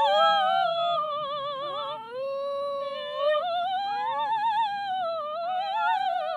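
A soprano singing a sustained opera line with a wide vibrato while a Shetland Sheepdog howls along with her, its howls sliding up and down in pitch.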